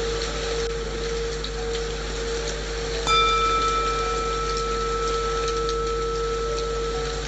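A singing bowl struck once about three seconds in, its ringing overtones slowly fading, over a steady lower bowl tone and the even hiss of rain white noise.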